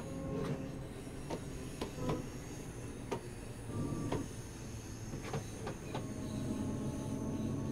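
British Rail Class 314 electric multiple unit running: a steady low rumble with irregular sharp clicks and knocks, and a thin whine that rises slightly near the end.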